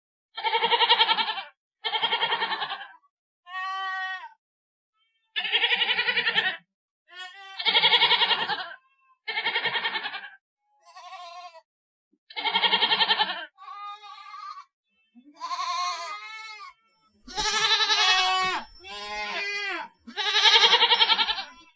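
A goat bleating over and over: about thirteen separate quavering bleats with short gaps between them, some louder and some quieter.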